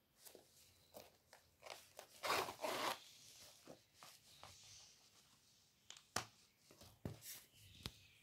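Hand-beaded clutch bags being handled: faint rustling and small clicks of beads and fabric. A louder crunching rustle comes about two to three seconds in, and a few sharp clicks come near the end.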